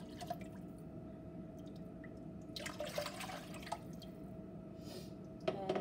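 Water poured from a glass measuring cup into a pot of stock, splashing and trickling for about a second starting about two and a half seconds in, over a steady low hum.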